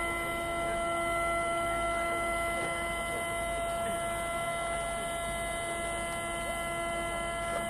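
Steady hum of several fixed pitches over an even high hiss, unchanging throughout.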